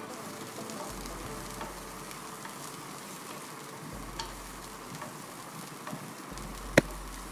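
Carrot and green capsicum strips sizzling steadily in oil in a non-stick pan on medium flame, stirred with a wooden spatula that scrapes and clicks lightly against the pan. A single sharp tap comes near the end.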